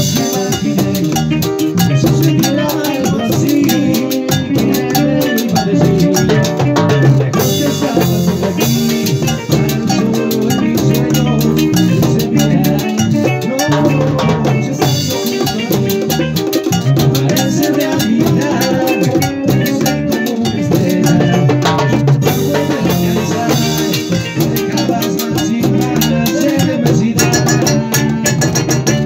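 A live Latin band playing: hand drums (bongos and congas) keep a steady beat under a red accordion's melody.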